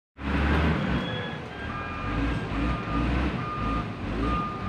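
Motor grader's diesel engine running with its back-up alarm beeping at a steady rate, one short beep a little under once a second: the machine is reversing.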